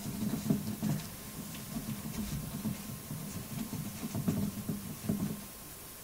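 Translucent plastic hamster wheel spinning under a running hamster: an uneven low rumble with light ticks, swelling and easing irregularly.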